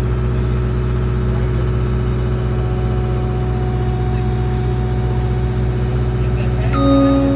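Heavy engine running at a steady speed with a whir. Near the end, a steady tone sounds for about a second.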